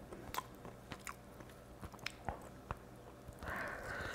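A person chewing and biting into a braised chicken wing close to the microphone, with scattered small sharp clicks from the mouth.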